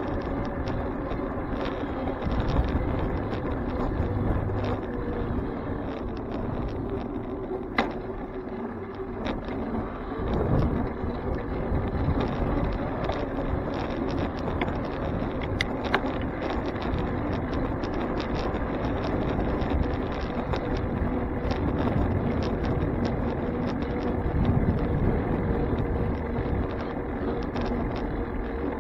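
Bicycle riding along a city street, heard from a bike-mounted camera: a steady rumble of wind on the microphone and tyres on the pavement, with many small rattles and clicks from the bike going over bumps.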